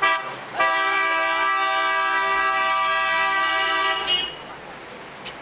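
A vehicle horn sounds one long steady blast of about three and a half seconds over street noise, with short higher toots from other horns near the start and the end.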